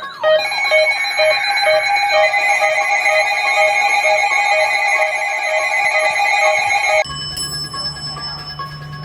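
Electronic alarm-like beeping, about two beeps a second, over several held tones. About seven seconds in it changes abruptly to a lower steady hum with a few scattered tones.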